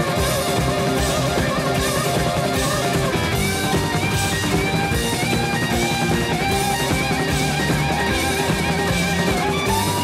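Rock music: a lead electric guitar plays repeated sliding, bent notes over a full band with a steady beat.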